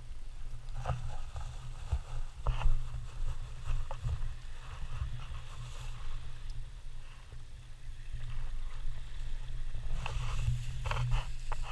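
Footsteps crunching and scraping on coarse, shelly beach sand over a steady low rumble of wind on the microphone. The crunches are sharpest about two and a half seconds in, and cluster again near the end.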